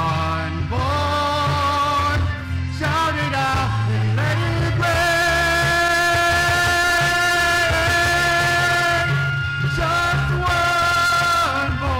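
A man singing lead into a handheld microphone, with other men's voices singing along and instrumental accompaniment underneath. He holds a long note with vibrato from about five to nine seconds in.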